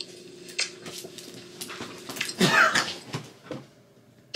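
Women letting out a loud, high-pitched squeal of laughter about two and a half seconds in. Before it come a faint steady hum and scattered clicks and rustles.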